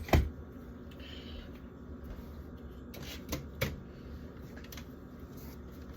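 Food containers knocking and clicking as they are handled while a fridge is cleared out: one sharp knock just after the start, a brief rustle about a second in, and two more clicks a little after three seconds.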